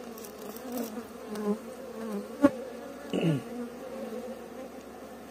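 Steady buzzing of a colony of Istranca (Strandzha) honey bees in an opened hive. A single sharp click comes about halfway through.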